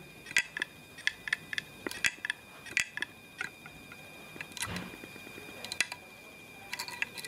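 Seagate Barracuda LP hard drive's head actuator arm clicking over and over in a run of sharp, irregular clicks, with a steady high whine underneath. The drive is powered with its platters removed, so the heads swing out looking for disc surface to read and find none.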